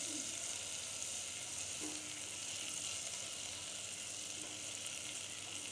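Butter melting in a saucepan, giving a faint, steady sizzle.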